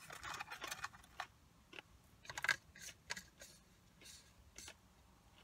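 Light clicks and crackles from a small plastic dipping-sauce cup being handled while she chews, the loudest crackle about two and a half seconds in.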